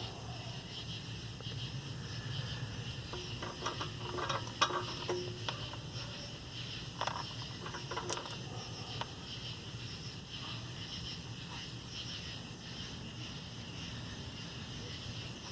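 A few light metallic clicks and taps of steel bolts being handled and compared, scattered through the middle of the stretch, one with a brief ring.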